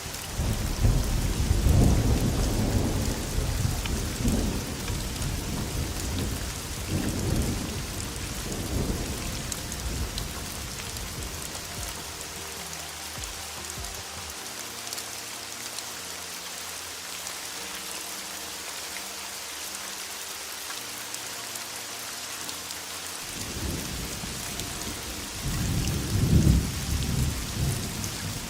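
Steady heavy rain with rolling thunder: a long rumble through the first several seconds and another that swells near the end.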